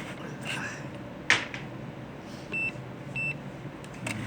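A sharp click, then two short high beeps about half a second apart from a digital multimeter being set up for a diode check.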